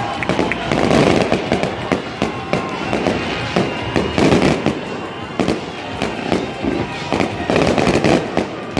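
Aerial firework shells bursting in rapid succession, many bangs and crackles overlapping, with louder volleys about a second in, around four seconds in and near the end.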